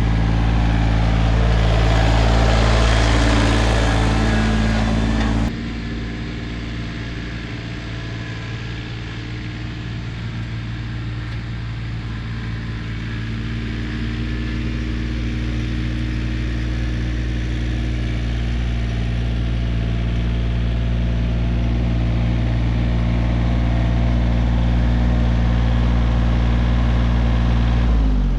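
Tractor engine running steadily. The sound changes abruptly about five seconds in, and the engine's pitch drops near the end as it slows.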